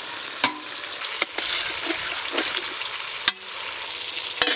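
Metal clanks of an aluminium cooking pot and its lid being handled, four sharp knocks that ring briefly, over a steady hiss of cooking.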